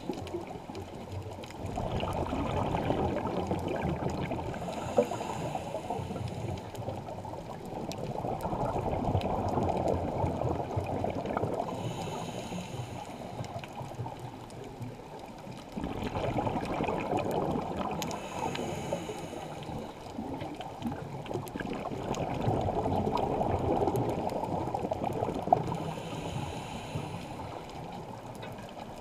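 Scuba diver breathing through a regulator underwater: a short hissing inhale followed by a longer bubbling, gurgling exhale, about four slow breaths in a regular rhythm.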